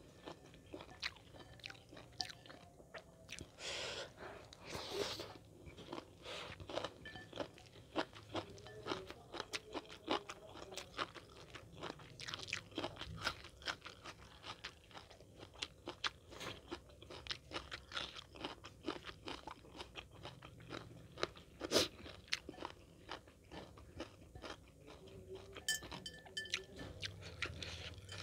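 Close-miked crunching and chewing of a meal of fried chicken with long-bean sambal, a rapid run of sharp crunchy clicks. The loudest is a single sharp crack about 22 seconds in.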